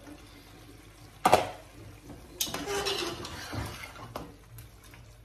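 A metal spoon stirring pieces of fried chicken in a large aluminium cooking pot, scraping and clanking against the pot. There is a sharp clank about a second in, then a stretch of scraping with a few knocks.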